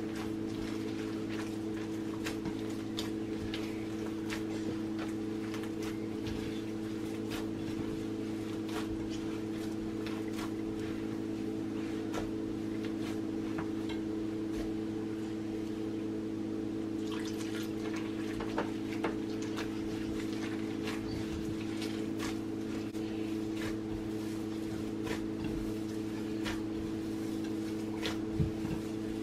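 Hands kneading corn tortilla dough in a ceramic bowl: soft wet squishes and small irregular taps against the bowl. A steady low hum runs underneath.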